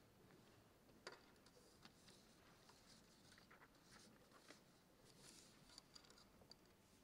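Near silence: quiet room tone with a few faint scattered clicks and rustles, the sharpest about a second in.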